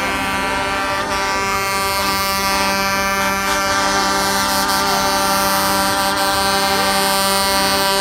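Truck air horns blaring steadily together, several held tones at once, getting slightly louder toward the end.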